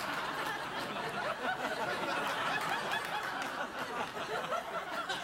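Studio audience laughing, a continuous crowd laugh after a punchline.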